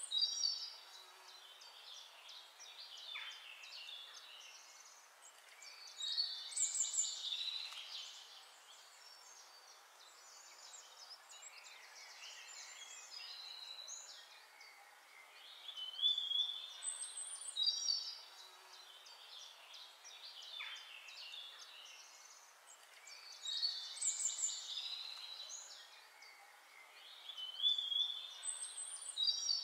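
Songbirds chirping and trilling in bursts every several seconds, with a faint steady hiss between the bursts.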